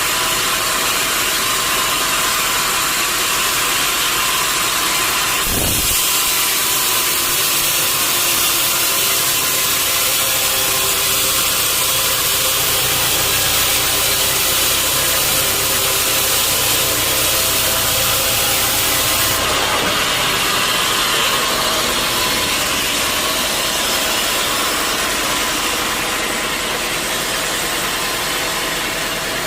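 Sawmill machinery running steadily. About six seconds in, a saw starts cutting and adds a louder hiss over a steady low hum, then stops abruptly about nineteen seconds in.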